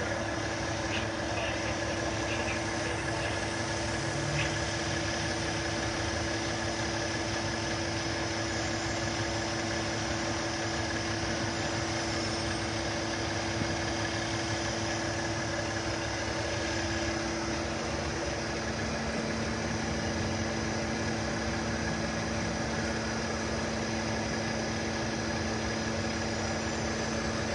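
Vehicle engine idling: a steady hum with a held tone that shifts lower about two-thirds of the way through.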